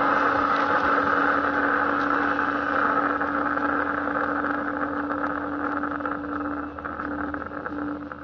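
Electric honey suction machine running with a steady hum and one constant tone as it draws stingless bee honey from the hive. It grows gradually quieter over the last few seconds.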